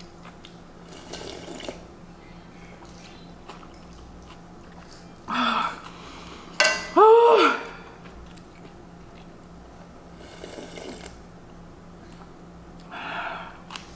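A woman drinking kimchi juice straight from a plastic container: gulps and sips, then a loud voiced 'ahh' of relief about seven seconds in, followed by softer breathy exhales.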